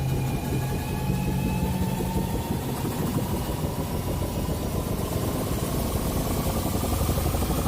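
Sci-fi time machine sound effect: a dense, rapidly fluttering rumble under a thin whine that rises slowly in pitch. A low hum beneath it fades out about two seconds in.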